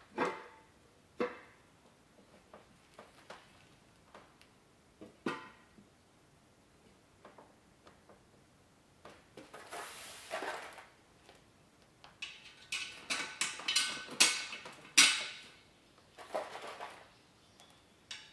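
Metal wheel parts clinking and knocking as a three-piece wheel is fitted together on a carpeted table: a few separate knocks early on, then from about 12 seconds in a run of quick metallic clicks and rattles as the small assembly bolts are picked from their cardboard box and set into the rim.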